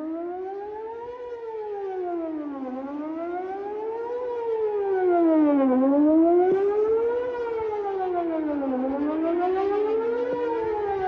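Whelen WPS 4004 electronic outdoor tornado warning siren sounding its wail during a test, the pitch rising and falling about every three seconds. A fainter copy of the wail runs slightly out of step beneath it.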